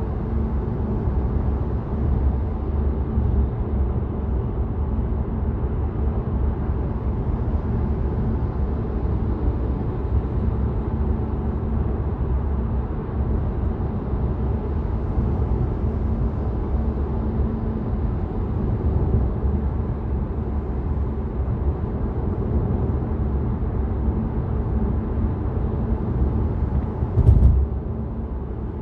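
Steady tyre and road rumble with wind noise heard inside the cabin of a Tesla electric car cruising on a freeway at about 70 mph, with a faint steady hum under it. A single brief thump comes near the end.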